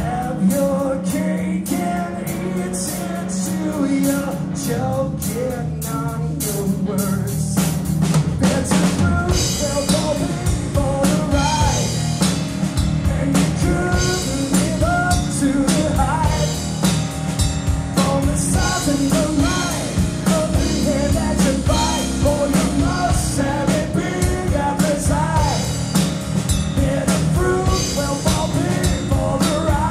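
Live three-piece rock band playing: electric guitar, bass guitar and drum kit, with a melody line over them. The drums and cymbals fill out about eight seconds in and the full band plays on.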